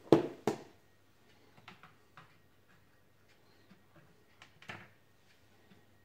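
Plastic containers knocked and set down on a kitchen counter: two sharp knocks right at the start, then scattered light clicks and taps, and a softer knock near the end.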